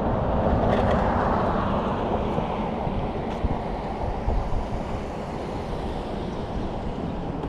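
A road vehicle passing by: its tyre and engine noise swells in the first second or two, then fades, over a steady low rumble.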